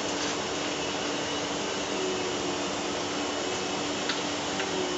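Steady whooshing hum of a running fan, such as a kitchen extractor hood or air conditioner, with a low steady drone under it. A light click or two near the end.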